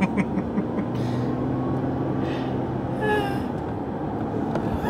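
Road and engine noise inside a moving car's cabin: a steady low rumble with a hum.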